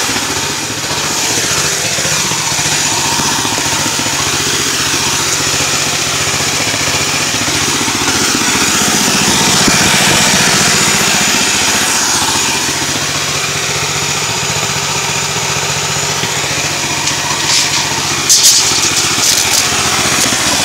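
Two-stroke chainsaw on a homemade chainsaw mill running steadily, its pitch rising slightly about halfway through, with a few sharp clatters near the end.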